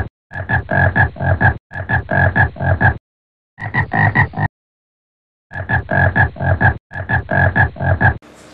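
Frog-like croaking: five runs of quick, evenly spaced croaks, about four or five a second, with short breaks between them and a longer pause around the middle.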